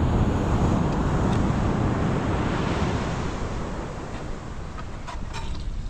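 Wind buffeting the microphone: a rumbling rush that is strongest for the first few seconds, then eases off. A few faint clicks come near the end.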